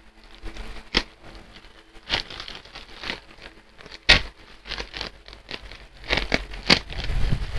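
Silver plastic mailer bag crinkling and rustling as it is cut open, with scattered sharp clicks and snaps of the plastic, the loudest about one second and four seconds in.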